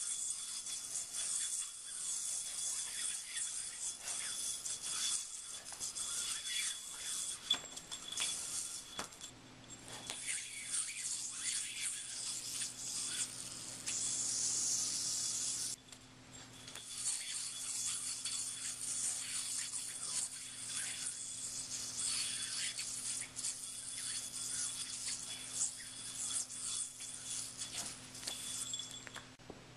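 Yomega Maverick yo-yo spinning through string tricks: a continuous hissing, rubbing whir of the string sliding around the spinning yo-yo, with small irregular scrapes. It cuts off abruptly about nine seconds in and again about sixteen seconds in, with a faint steady low hum underneath from the first cut.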